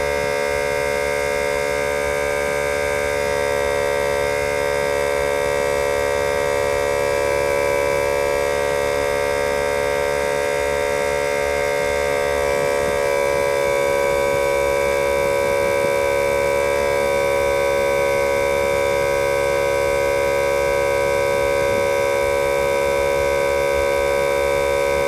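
12-volt portable tyre inflator running steadily with an even motor whine, pumping a tyre up from about 40 to 45 psi.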